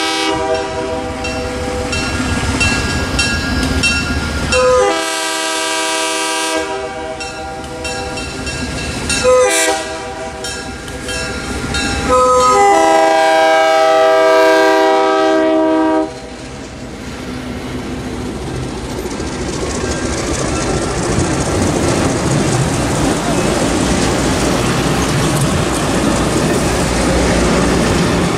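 Passenger train's diesel locomotive horn sounding a series of blasts for a grade crossing, the last long blast the loudest and cutting off about 16 seconds in. Then the passenger cars roll past with a steady rumble of wheels on rails that grows louder.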